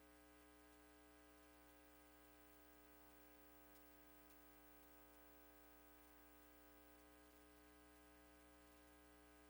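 Near silence: a faint, steady electrical hum and hiss that does not change.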